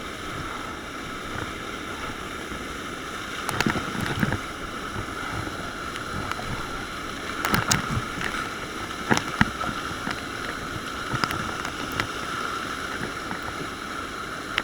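Steady rush of whitewater on a river, broken by short splashes and knocks every couple of seconds, the loudest in clusters about four, eight and nine seconds in.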